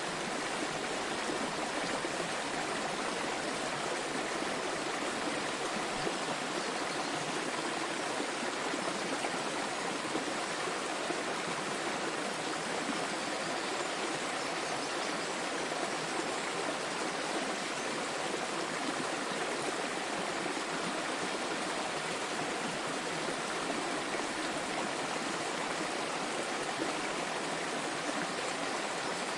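Small waterfall splashing and flowing in a steady, even rush of water.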